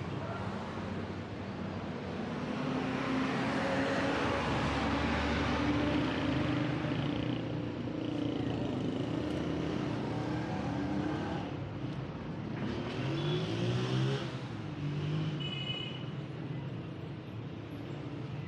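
City street traffic: a passing vehicle swells the road noise about four to six seconds in, then another engine revs up with a rising pitch around thirteen seconds in.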